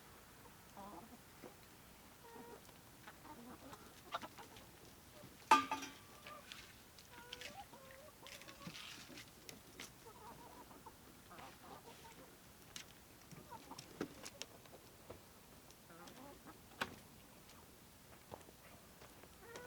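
Chickens clucking quietly here and there, with scattered faint clicks and one sharp, louder sound about five and a half seconds in.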